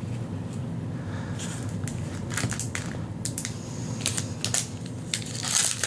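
Foil booster-pack wrapper being handled and crinkled, a string of sharp crackles starting about a second and a half in and getting busier toward the end, over a steady low hum.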